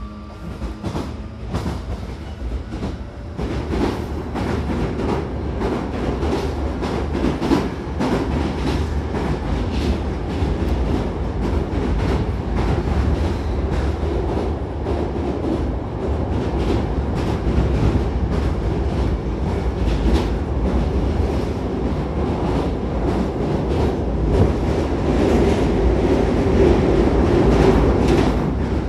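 Hankyu Railway electric commuter train running, heard from inside the car: a steady low rumble with the wheels clicking over rail joints. It grows louder over the first few seconds as the train picks up speed.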